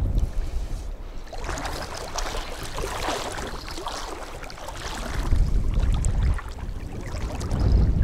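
Water splashing and swishing around legs wading through shallow water, loudest a couple of seconds in. Wind rumbles on the microphone at the start and again toward the end.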